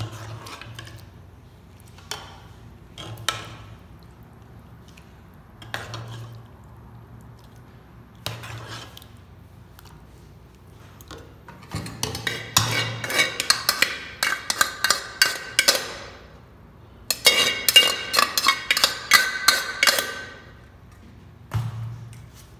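A metal ladle and spoon knocking and scraping against aluminium cooking pots while biryani is layered with chicken gravy and rice. A few separate knocks come first, then two runs of rapid scraping and clinking with a metallic ring, the first about four seconds long and the second about three.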